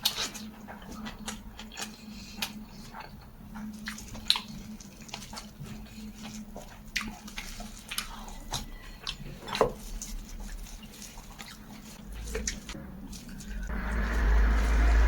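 Close-up eating sounds: chewing with many short, wet mouth clicks and smacks, over a faint steady low hum. Near the end a louder, steady rushing noise comes in.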